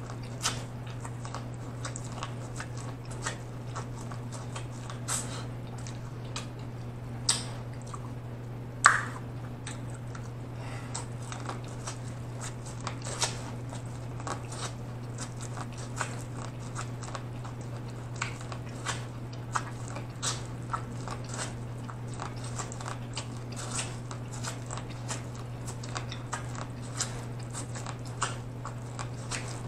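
Biting and chewing corn on the cob: irregular crunches and clicks as the kernels are bitten off, the sharpest about nine seconds in, over a steady low hum.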